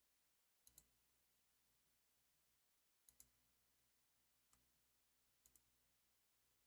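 Faint clicks of a computer mouse over near silence: a quick pair about two-thirds of a second in, another pair just after three seconds, a single click about a second later, and a last pair near five and a half seconds.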